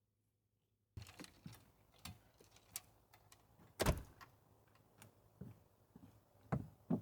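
A run of light clicks and knocks starting about a second in, with a heavier thump about three seconds in and two more close together near the end, like objects being handled or a door or cupboard being worked.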